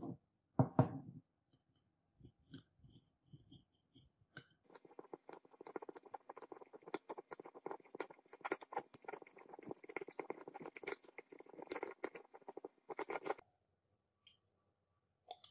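Metal spoon stirring and scraping crystals against the inside of a glass beaker: a dense run of rapid grinding, scratching clicks lasting about nine seconds, then stopping. A single low knock comes about half a second in.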